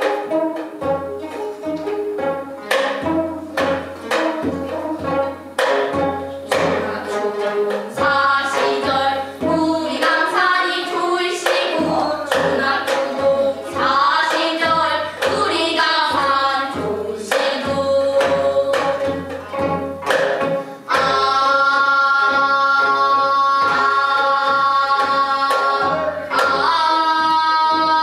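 Gayageum byeongchang: girls plucking gayageum zithers and singing together. For the first several seconds the plucked notes carry the music, the voices come in about a third of the way through, and from about three quarters in the singers hold long sustained notes.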